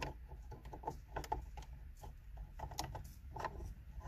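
A series of irregular small clicks and rattles from a BMW start-stop engine button and its trim ring as they are turned and pressed by hand, lining the button's tab up with the slot in the dashboard opening.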